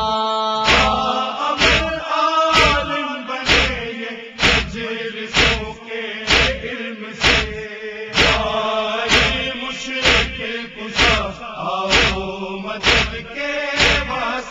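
Noha recitation: male voices chanting a slow, drawn-out melody over steady matam, rhythmic chest-beating that lands as a sharp thump about once a second.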